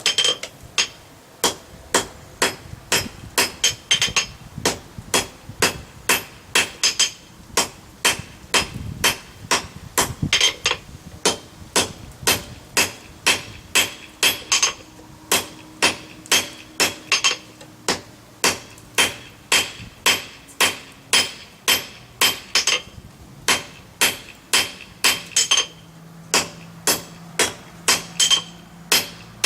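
Blacksmith's hammer striking hot steel on an anvil, about two blows a second with a ringing tone, setting a forge weld on the scarfed ends of tong reins.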